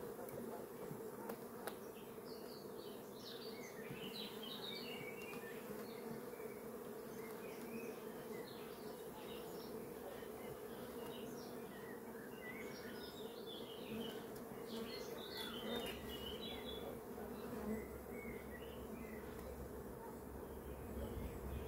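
Steady hum of a honeybee colony buzzing over an open hive whose frames are lifted out.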